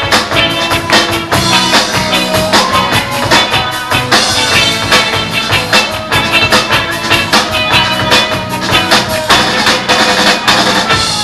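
Christian rock band playing a song: electric guitars and bass over a drum kit keeping a steady beat.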